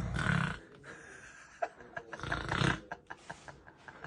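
A man snoring: two loud, rough snores about two seconds apart, each lasting about half a second.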